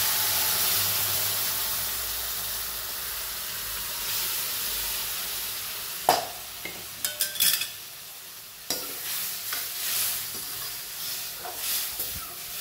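Mutton and its hot cooking stock poured into a pan of ghee-fried coconut and spice masala, sizzling loudly as the liquid hits the hot fat, the sizzle slowly dying down. About halfway through, a metal ladle starts scraping and clinking against the pan as the curry is stirred, with fresh bursts of sizzling.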